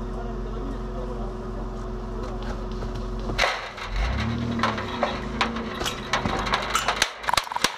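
The 1989 Toyota 4Runner's engine running with a steady low hum. About three and a half seconds in, the sound changes as the vehicle pulls forward, followed by a run of irregular clicks and knocks.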